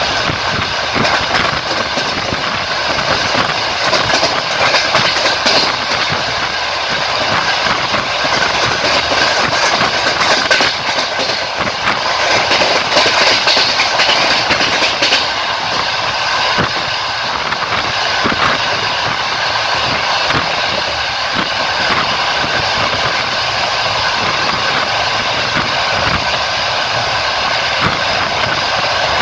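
Passenger train running at speed, heard from a carriage: a steady loud rolling noise of wheels on rail, with the clack of wheels passing over rail joints.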